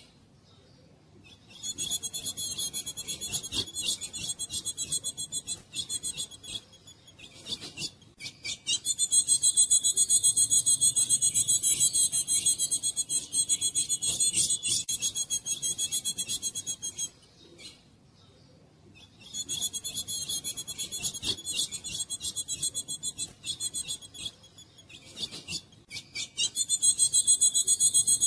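Female ultramarine grosbeak (azulão) giving rapid, high-pitched raspy chatter in long runs of several seconds, four runs with short pauses between them.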